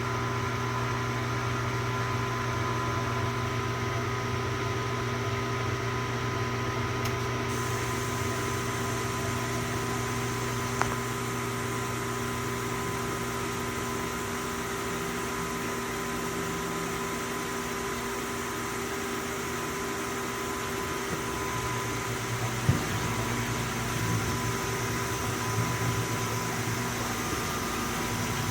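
1986 GE convertible dishwasher running at the start of its rinse cycle with a steady motor hum. A sharp click comes about eleven seconds in and a knock about twenty-three seconds in, after which the low rumble grows rougher.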